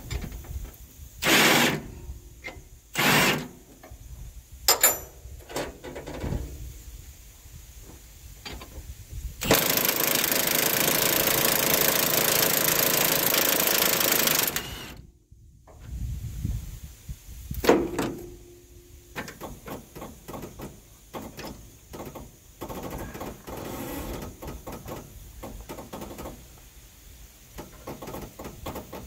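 Impact wrench hammering on a truck-cab suspension bolt: two short bursts, then one run of about five seconds. Later comes a long run of fast, light clicking.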